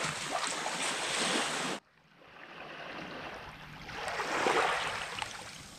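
A loud, steady rushing hiss that cuts off abruptly about two seconds in. Then small waves wash gently onto a sandy beach, one wash swelling up past the middle and fading away.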